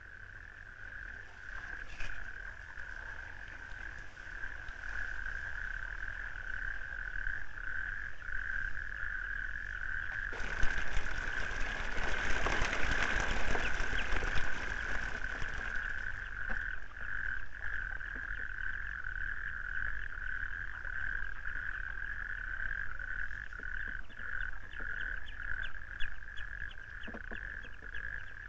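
A chorus of frogs calling in one steady, high-pitched pulsing note. About ten seconds in a rushing noise swells over it and fades some six seconds later, and quick clicking calls come through near the end.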